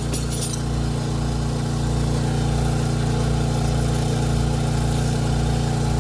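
A steady engine drone at constant speed, with a few light metallic clicks in the first half second as a wrench works the old sway bar link nut.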